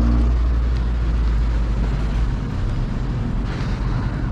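Steady low rumble of wind and road noise heard from a moving bicycle, with a passing motor vehicle's engine hum fading out just after the start and a brief rush of hiss about three and a half seconds in.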